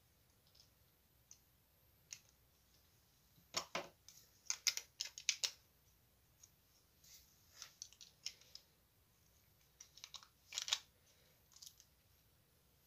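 Small plastic Lego bricks clicking and clattering as they are handled off to the side. There are a few scattered clicks, a busy cluster of clatter about four seconds in and another shorter one about ten seconds in.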